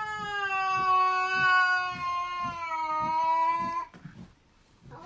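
A cat giving one long, drawn-out yowl of about four seconds, holding its pitch and sagging slightly before it breaks off; a second yowl starts at the very end.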